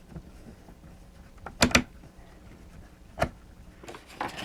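Sharp clicks of a screwdriver and plastic parts being handled while a toy's housing is unscrewed: a quick pair about a second and a half in, another about three seconds in, and a few fainter ones near the end.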